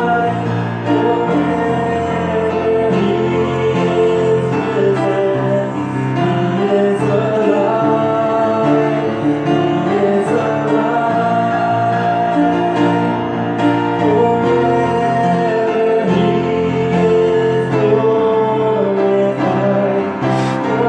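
Music: a slow song with singing over sustained instrumental chords.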